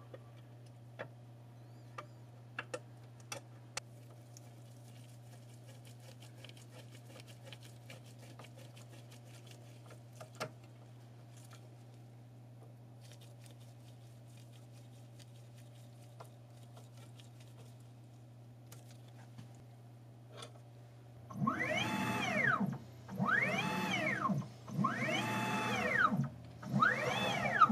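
Stepper motor of a Sieg X2 CNC mini mill driving the table through the ball screw and its newly fitted jaw coupling, in a motion test. Near the end come four moves, each a whine that rises and then falls in pitch as the motor speeds up and slows down. Before that there is only a faint steady hum and a few light clicks of a hex key on screws.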